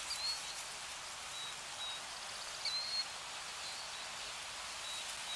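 Steady outdoor nature ambience, an even hiss like wind or rain through trees, with a few faint, short, high bird chirps scattered through it.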